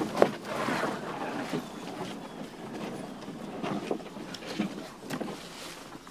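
Leafy shrub branches brushing and scraping against a canoe carried overhead through dense brush, in an irregular rustle with scattered knocks and one sharp knock about a quarter-second in.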